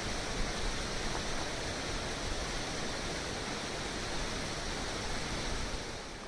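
Small stream waterfall splashing and rushing steadily, its flow perhaps swollen by snowmelt; the sound drops a little just before the end.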